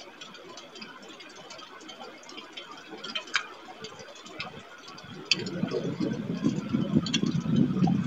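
Scattered ticks, typical of raindrops striking the nest webcam and its microphone in a storm. About five seconds in, a much louder low, rattling rumble sets in and keeps going.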